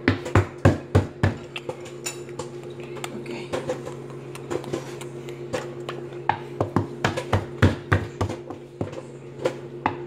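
Microwave popcorn popping in a Samsung microwave: irregular sharp pops, coming in flurries, over the steady hum of the running oven.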